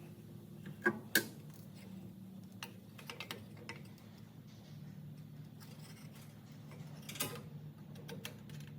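A few sharp metallic clinks and light ticks of hand tools and metal parts being handled, two close together about a second in and another near the end, over a steady low hum.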